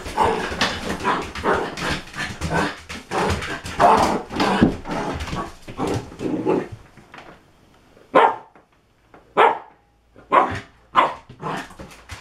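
A dog barking repeatedly: a quick, dense run of barks, then after a short lull about seven seconds in, single sharp barks roughly a second apart.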